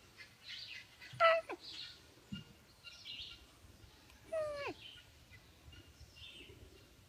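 Two falling animal calls, each about half a second long and about three seconds apart, over faint high chirping.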